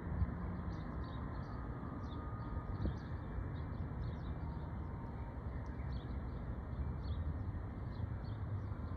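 Steady low outdoor rumble with small birds chirping over it again and again.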